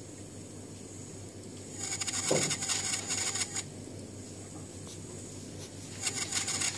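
DJI Phantom 3 camera gimbal's brushless motors buzzing with a high-pitched whine as the gimbal turns the camera in its power-up self-calibration, in two bursts: one about two seconds in lasting under two seconds, another starting about six seconds in.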